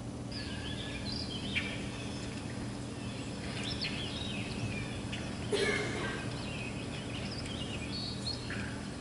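Bird-like chirps and short squeaky calls, many quick rising and falling notes, from a wildlife video played back over the hall's speakers, over a steady low hum; the loon researcher cannot yet say what makes the sound. A single knock about halfway through.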